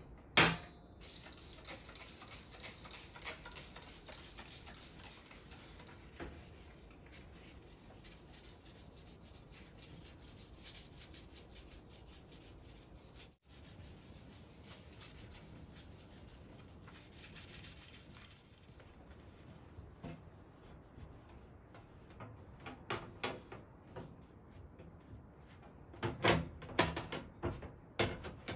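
Hand scrubbing and wiping a gas stove top, in repeated rubbing strokes. Near the end, the stove's metal pan-support grate knocks and clicks several times as it is handled.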